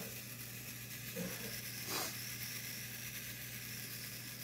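Loose resin diamond-painting drills rattling in a small plastic tray as it is shaken to make them settle facet side up: a soft, continuous sizzling rattle with a brief louder rush about two seconds in.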